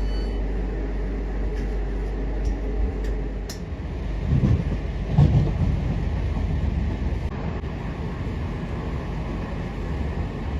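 Class 323 electric multiple unit running along the line, heard from inside the carriage: a steady rumble with a couple of knocks about four and five seconds in.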